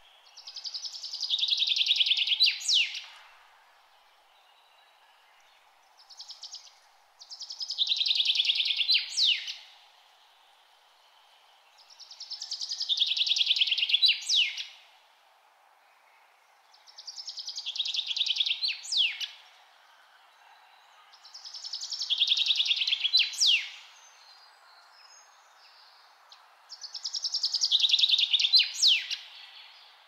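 A songbird repeating the same song six times, about every four and a half seconds: each song is a rapid trill that grows louder for about two and a half seconds and ends in a few sharp, high sweeping notes. A faint steady hiss lies underneath.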